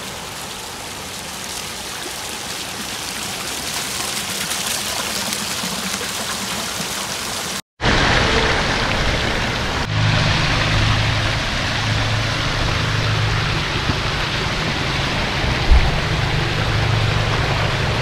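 Water of a pondless waterfall splashing out of black spillway pots and running down a rocky stream bed, a steady rushing and trickling. About eight seconds in it cuts out for an instant and returns louder, with a low rumble underneath and a single short thump a few seconds before the end.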